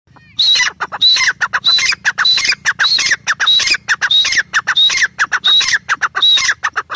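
Grey francolin (teetar) calling: a fast, loud run of repeated phrases, each a high note followed by lower falling notes, about one and a half phrases a second, starting about half a second in.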